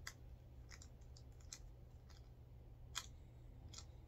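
Near silence over a low steady hum, broken by a few faint, sharp clicks, the loudest about three seconds in.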